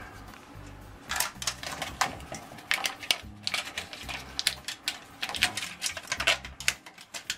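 Aluminium flexible duct crinkling and crackling as it is worked by hand onto a fan housing collar, along with foil tape being handled and pressed on. The sound is an irregular run of quick clicks and crackles.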